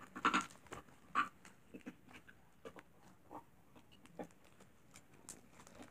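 Slime being squeezed and kneaded in the hands, giving irregular wet squelches and small clicking pops, the loudest in the first second and a half.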